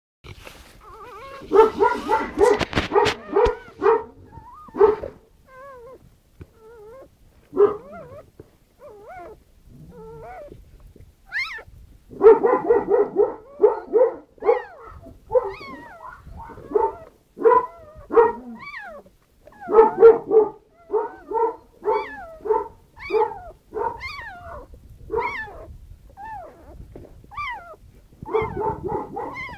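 Newborn Central Asian Shepherd puppy crying in short, high, wavering squeals, in long runs of about two a second, while its mother licks it clean. A busier stretch of cries mixed with licking and rustling comes in the first few seconds.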